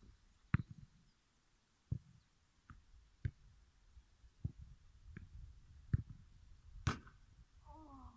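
A football being struck back and forth with feet and head. There are about six separate sharp thuds, roughly a second and a half apart, and the loudest comes near the end.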